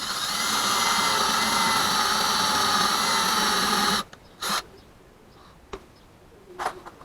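Electric drill running steadily for about four seconds while drilling a hole out slightly larger, spinning up at the start and stopping abruptly, then a brief second burst.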